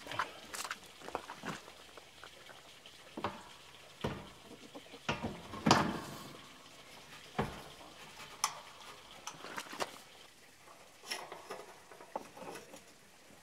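Irregular knocks, clicks and light metal clanks as a steel-tube farm gate is handled and a slide-bolt latch is fitted to its post, the loudest knock near the middle.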